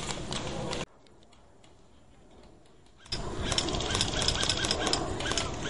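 Airsoft electric rifles firing in rapid bursts over outdoor noise. The sound cuts off abruptly about a second in, leaving a much quieter stretch. Near the middle it returns suddenly, with more rapid clicking fire.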